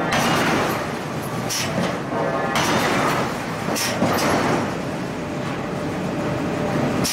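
Power forging hammer running steadily in a forge, with a few sharp knocks as a red-hot steel block is worked on its anvil.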